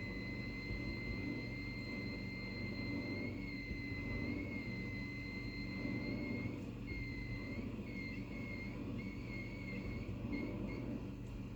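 Samsung dishwasher running with a low hum under a high-pitched whine; the whine holds steady, then wavers and breaks up into short chirps in the last few seconds before stopping. A horrible fault noise from a machine its owner calls a lemon.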